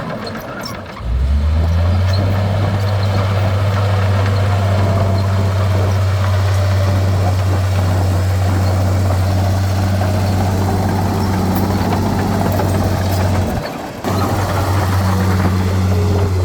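Heavy earthmoving machinery's diesel engine running steadily with a deep, constant drone, dipping briefly about a second in and again near the end.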